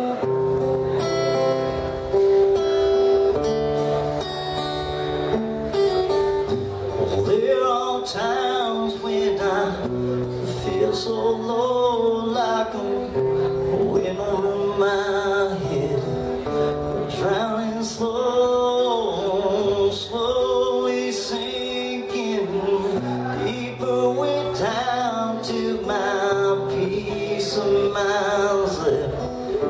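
A man singing to his own strummed, plugged-in acoustic guitar. The guitar plays alone at first, and the voice comes in about a quarter of the way through.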